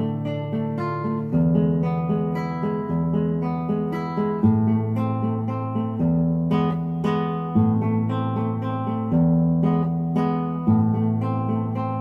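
Background music: an acoustic guitar picking chords, with the bass note changing about every one and a half seconds.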